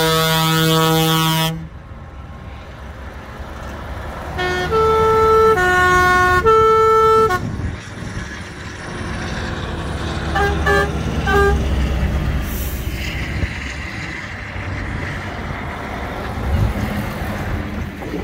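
Truck air horns sounding as trucks drive past: a loud held horn chord cuts off about a second and a half in, then a multi-note horn plays a short changing-pitch tune, and a few short toots follow over the low diesel rumble of a truck passing close by.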